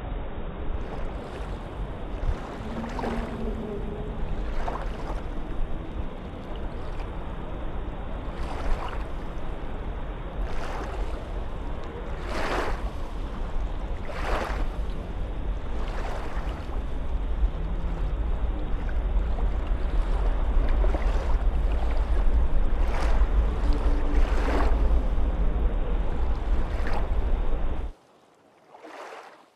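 Small waves lapping and splashing in shallow water at the shoreline, a splash every couple of seconds, over a steady low wind rumble on the microphone. The sound cuts off suddenly near the end.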